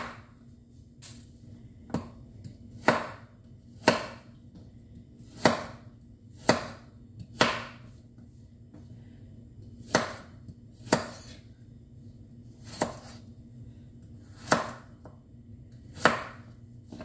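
Large kitchen knife slicing carrots on a wooden cutting board: a sharp knock each time the blade goes through to the board. There are about a dozen cuts, roughly one a second, with a few longer pauses between them.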